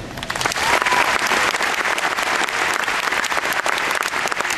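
Large audience applauding, a dense steady clatter of many hands with some sharp individual claps standing out, swelling up within the first second.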